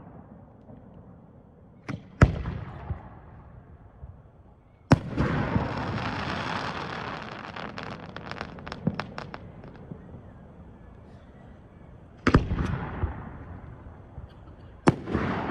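Aerial fireworks bursting: about five sharp bangs spread over the stretch, each trailing off in a long rumbling echo. The loudest, about five seconds in, is followed by several seconds of crackling.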